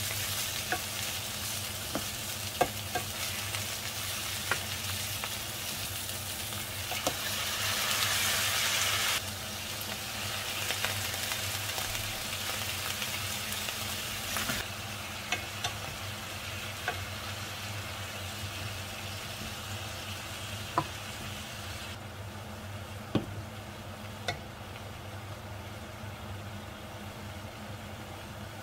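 Cabbage, onion, carrot and sundae sizzling in a frying pan while being stirred with a wooden spoon, with scattered sharp clicks of the spoon against the pan. The sizzle is loudest about six to nine seconds in, then drops in steps and grows fainter.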